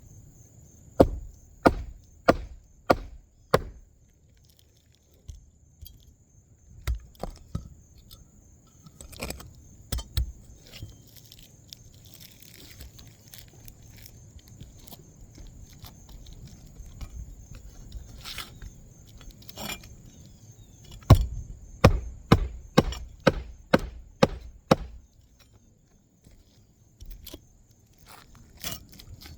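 Hammer blows driving nails into an asphalt roofing shingle: runs of sharp strikes about two a second, a short run near the start and a longer one of about eight blows past the middle, with a few single taps between.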